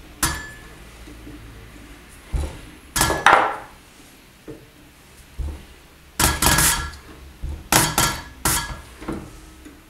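Sharp metallic clicks and clinks from a hand-pump diesel injector tester as a Land Rover 2.25 diesel injector's opening pressure is set to 135 bar with an Allen key on its adjuster. A single click comes near the start, a cluster about three seconds in, and a longer run of clicks and knocks from about six to eight and a half seconds in.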